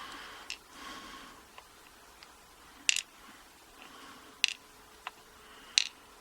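A handful of sharp, irregular clicks of small pin-tumbler key pins being tipped out of a padlock core and dropping onto a hard surface.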